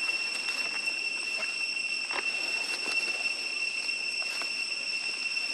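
Steady high-pitched insect drone from a forest, one unbroken tone with fainter overtones above it, with scattered faint clicks and rustles.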